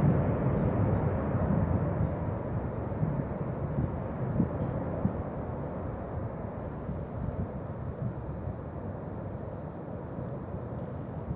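Boeing 737-200's Pratt & Whitney JT8D low-bypass turbofans at take-off power as the jet lifts off and climbs away: a broad rumble that fades steadily. An insect trills in quick high pulses twice in the background.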